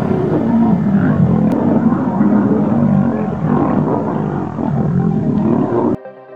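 Male lions fighting, growling and roaring in dense overlapping snarls, cut off abruptly near the end.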